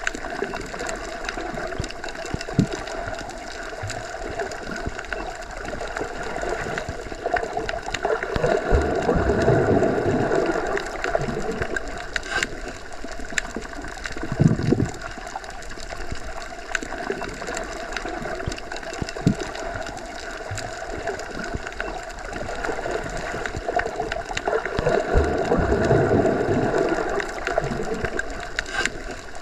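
Underwater ambience as heard submerged in a pool or lake: a continuous muffled rushing and gurgling of water that swells louder twice, with a few scattered clicks and knocks.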